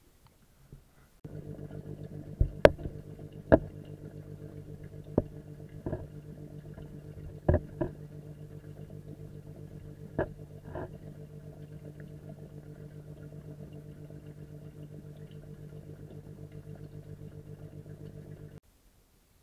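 Steady, fast-pulsing machine hum of a fish-tank pump, picked up by a camera under the water. It starts about a second in and cuts off abruptly near the end, with a scattering of sharp clicks and knocks in its first half.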